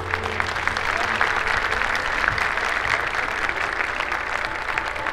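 Large audience applauding steadily with many hands, as the ensemble's last note fades out at the start.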